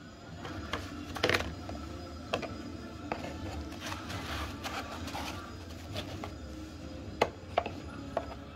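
Handling noise from unboxing: cardboard and paper packaging rubbed and opened, and plastic doorbell camera units and batteries picked up and set down on a wooden table. Scattered clicks and knocks, the sharpest about a second in and about seven seconds in, over a low steady hum.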